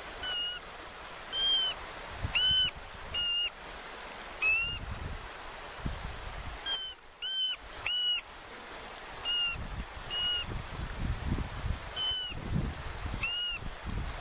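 About a dozen short, sharp animal calls at uneven intervals of about a second, each rising then falling in pitch.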